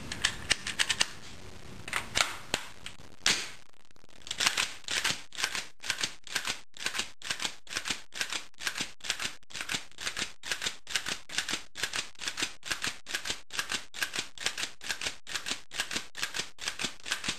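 Semi-automatic gunshots fired in a steady string, a few spaced shots at first and then about two a second, as a 30-round magazine is emptied.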